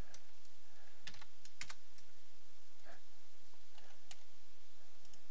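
A handful of short, sharp clicks from working a computer's mouse and keyboard, spaced irregularly, over a steady low background noise.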